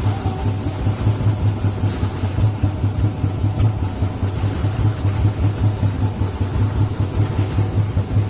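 A small boat's engine running steadily with an even, rapid throb, over a hiss of wind and water.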